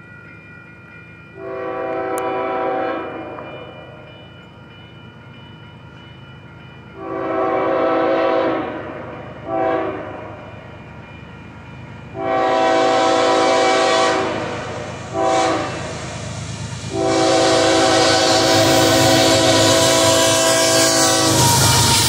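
Multi-tone horn of the lead locomotive, a KCS ES44AC, sounding a series of long blasts broken by two short ones. The rumble and rush of the approaching intermodal train grow louder in the second half, and the last long blast is held as the train draws close.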